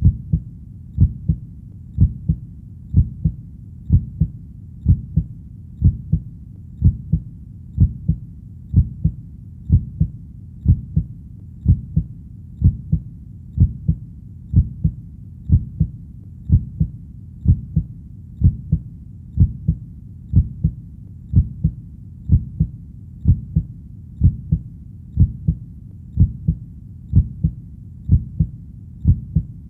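Heartbeat, a steady lub-dub double thump about once a second, deep and even.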